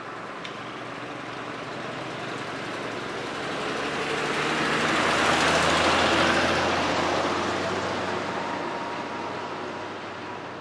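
Diesel dump truck driving past close by, its engine and tyres growing louder to a peak about halfway through and then fading away.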